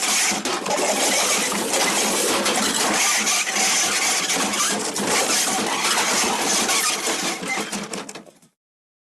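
The MGM 'Elephant Smash' stock cartoon crash sound effect: a long, dense crash and clatter of breaking and tumbling debris that tapers off and cuts out about a second before the end.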